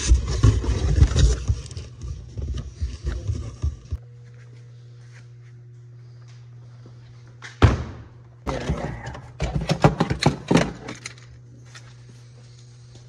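Objects being handled: a few seconds of dense clattering and knocking at the start, a steady low hum, one sharp knock past the middle, then another run of quick rattling clicks and knocks.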